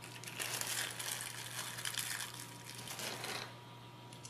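A small clear plastic bag of screws and nuts being handled and opened: crinkling plastic with the small metal hardware shifting inside. It stops about three and a half seconds in.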